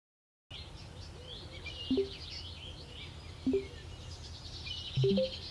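Songbirds chirping over a low steady outdoor rumble, starting about half a second in after silence. Three short low notes, each stepping up in pitch, come about a second and a half apart and are the loudest sounds.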